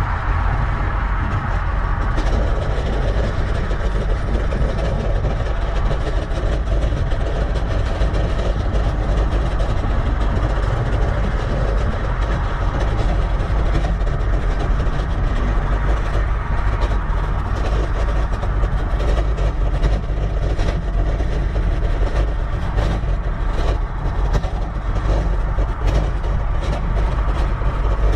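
Steady wind rumble on an action camera's microphone while riding a bicycle at speed, mixed with tyre and road noise, with a scatter of light clicks in the second half.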